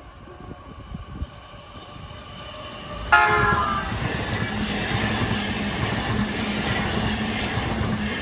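JR Nambu Line E233-series electric train sounding one short horn blast about three seconds in, then rumbling past the level crossing with wheel-on-rail noise and a steady low hum. Before the horn, the crossing's warning bells ring faintly.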